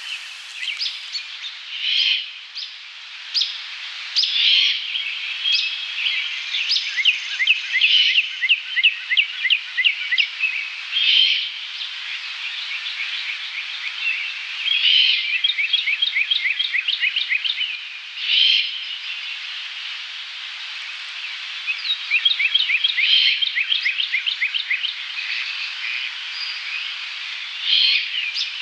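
Songbirds singing in chorus: rapid trills and repeated chirps run on throughout, with louder, harsher notes every few seconds. There is no deep owl hooting.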